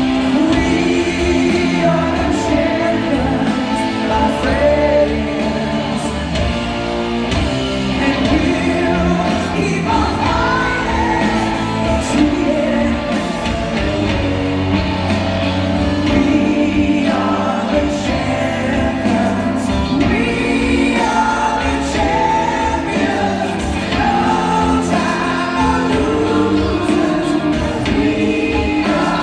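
A live rock band plays while a male lead singer sings, steadily and loud, filmed from the crowd in a large hall.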